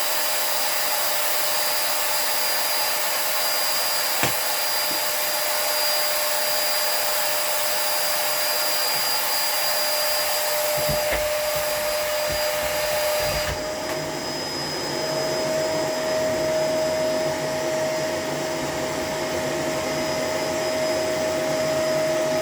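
Shark LA702 bagless vacuum cleaner running steadily with a high motor whine. About two-thirds of the way through, the sound turns duller and lower as the load on the motor changes.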